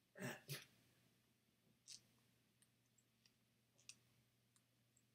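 Faint, scattered clicks of TV remote-control buttons being pressed one at a time, about one every half-second to second, with two louder ones right at the start, in near silence.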